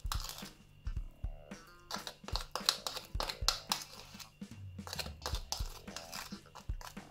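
Thick, sticky glue-free slime mixture squelching and clicking as it is stirred with a plastic spoon in a plastic bowl, in quick irregular smacks. Soft background music plays underneath.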